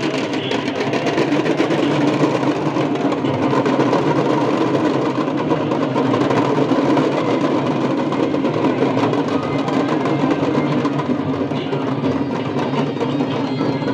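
Devotional Ganga aarti music with drumming, over the dense noise of a large crowd.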